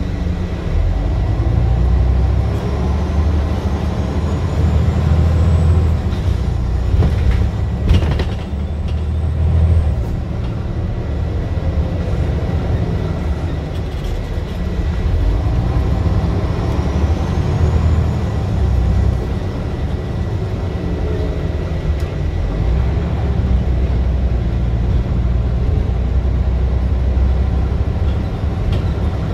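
Scania bus engine thrashing under load, heard from inside the saloon as a loud deep drone that rises and falls in waves as the bus works through the gears. A faint rising whistle comes twice, and there is a sharp knock about eight seconds in.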